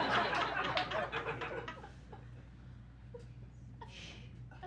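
Audience laughter and chuckles, loudest at the start and dying away by about two seconds in, over a steady low hum.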